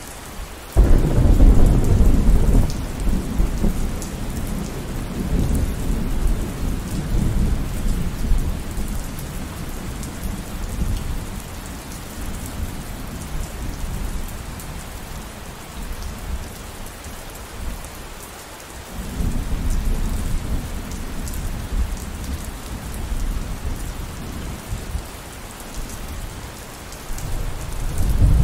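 Steady rain with rolling thunder: a sudden loud thunderclap about a second in that rumbles on and fades over several seconds, a second rumble of thunder about two-thirds of the way through, and a third starting to build near the end.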